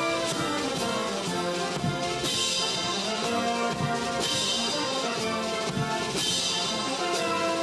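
Brass band playing, with drums and a cymbal crash twice.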